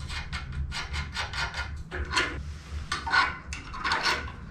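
Steel parts of a 7¼-inch gauge steam locomotive's rear driving axle suspension being handled as the coil springs and spring bar are fitted by hand: a quick run of clicks, clinks and scrapes, over a steady low hum.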